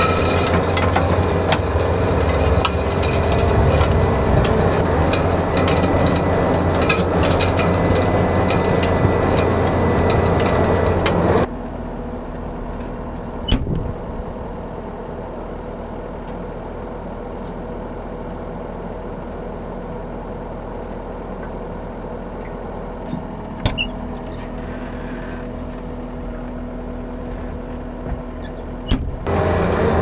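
John Deere 333G compact track loader running a Reist Rotorake power rake under load, the engine working hard as the spinning rake tears through sod and topsoil. About eleven seconds in the loud work cuts off to a quieter steady machine hum with a few sharp clicks, and the heavy raking noise returns near the end.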